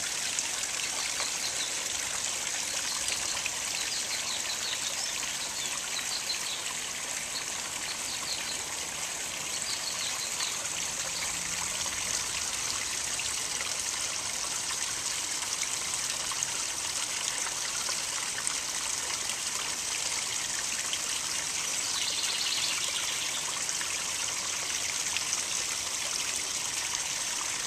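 Small rock waterfalls of a garden koi pond spilling and trickling into the water, a steady splashing hiss.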